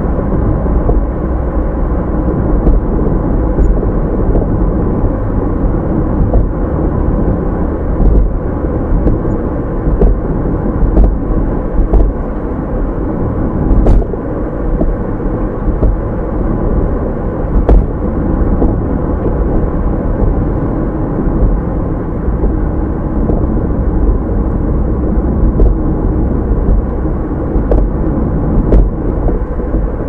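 A car driving: a steady, deep rumble of engine and road noise, with faint scattered clicks and knocks.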